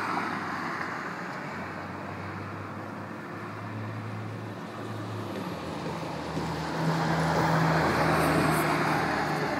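Road traffic passing: tyre noise swelling and fading as vehicles go by, over a steady low engine hum, with the loudest pass from about two-thirds of the way through.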